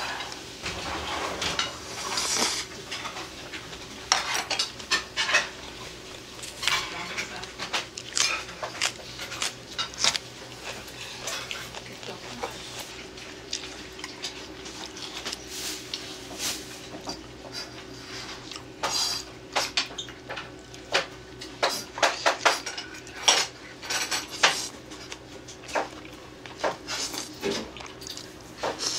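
Stainless steel chopsticks clicking and scraping against ceramic plates and bowls as food is picked up, in many short, irregular clinks, with chewing in between.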